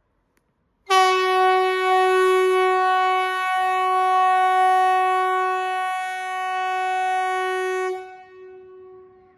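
Metallic Kockums Typhoon (MKT 75/370) pneumatic civil-defence siren sounding one steady, unwavering tone. It starts abruptly about a second in and holds loud for about seven seconds, then cuts off and fades with an echo near the end. This is one blast of the Swedish "Important message to the public" warning signal, sounded during a siren test.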